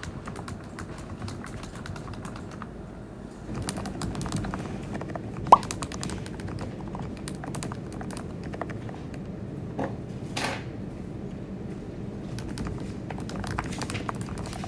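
Typing on a computer keyboard: irregular key clicks, with one sharp, louder tap about five and a half seconds in.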